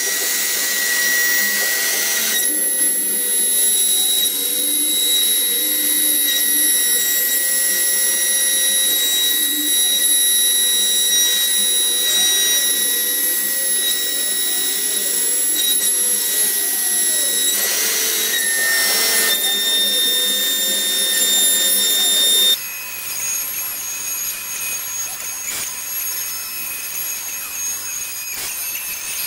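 Makita trim router spinning as the spindle of a CNC milling machine, a steady high whine with the cutter routing a groove into a wooden board, and a vacuum hose drawing off the chips. About two-thirds through, the sound drops suddenly to a quieter steady run with a different whine.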